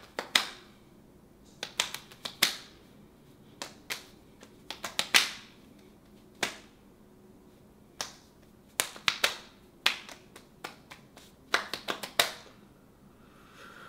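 Bare hands and forearms slapping against each other in quick, irregular clusters of sharp smacks, separated by short pauses.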